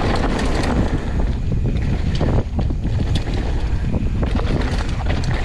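Wind rushing over the microphone of a mountain biker's camera during a fast descent, with the tyres rolling over dirt and loose stones and frequent short rattles and knocks from the bike over bumps.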